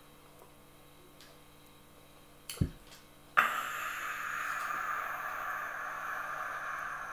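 A man's long, raspy cry with his mouth wide open, breaking out suddenly about three seconds in after a brief thump and held on steadily.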